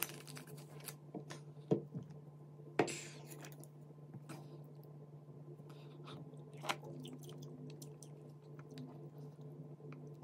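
Scattered soft clicks, taps and wet, squishy scraping as a spoon and wooden chopsticks stir and lift thick, saucy rosé tteokbokki and glass noodles in a pan, with one louder rustling scrape about three seconds in. A steady low hum runs underneath.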